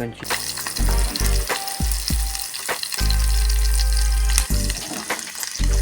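Chicken pieces frying in hot oil in a pan, sizzling steadily, with a few sharp knocks as they are stirred.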